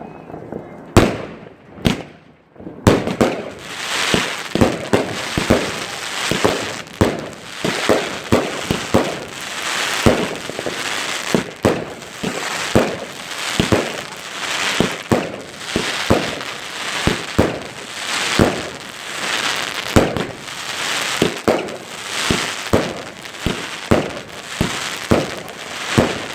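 Fireworks going off: a few separate bangs, then from about three seconds in a dense run of crackling with loud reports roughly twice a second.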